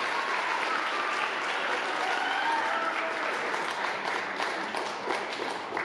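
Crowd applauding, with a few voices calling out over the clapping; the applause thins a little near the end.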